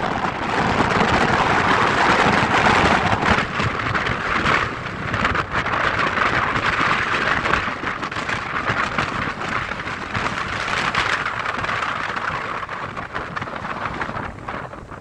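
Storm wind and surf on a beach: a dense, rain-like hiss that eases near the end.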